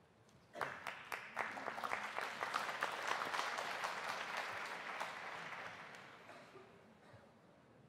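Audience applauding in an arena. Dense clapping starts suddenly about half a second in, holds strong for several seconds, then dies away near the end.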